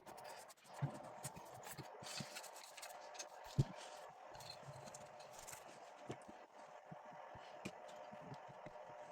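Small pump parts being handled and cleaned by hand: scratching and scrubbing with scattered light clicks and knocks, one sharper knock about three and a half seconds in, over a faint steady hum.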